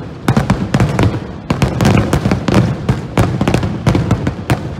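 Aerial firework shells bursting in a rapid barrage, many sharp bangs close together over a continuous low rumble.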